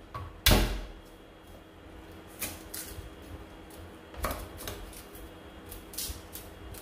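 Knife knocking on a chopping board while garlic is prepared: one heavy knock about half a second in, then a scatter of lighter knocks and taps.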